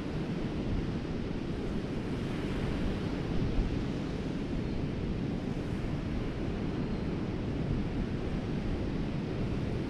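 Steady surf washing onto the beach, mixed with low wind rumble on the microphone.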